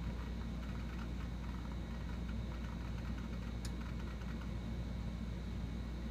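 Microscience HH-1050 MFM hard drive seeking during the Unix PC's shutdown: soft, irregular clicking of the head actuator, with one sharper click about three and a half seconds in, over the steady low hum of the running machine.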